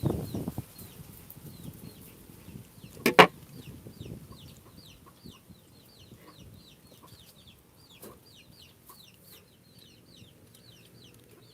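Birds chirping in quick succession, short falling high notes repeated several times a second, with one sharp click about three seconds in.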